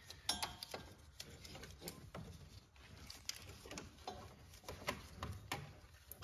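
Faint, irregular clicks and rubbing as a double-ribbed rubber serpentine belt is worked by gloved hands around the alternator and A/C compressor pulleys.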